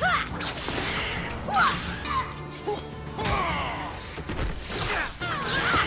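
Cartoon fight-scene soundtrack: dramatic background music under several sharp impacts and whooshes of blades clashing.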